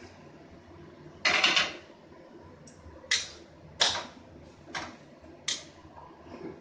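Metal spatula scraping and knocking against a stainless steel wok while stirring sliced bottle gourd: a longer scrape about a second in, then four short strokes roughly a second apart. A faint steady hiss from the cooking pan lies underneath.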